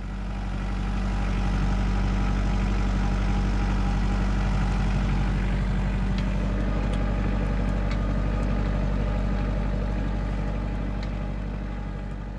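Compact tractor's engine running steadily, a deep even drone that swells in over the first second and eases off slightly near the end.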